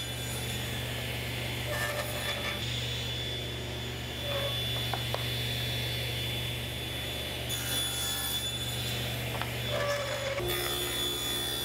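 Table saw running with a steady motor hum while wooden strips are crosscut to length against a stop block, the blade cutting wood a couple of times.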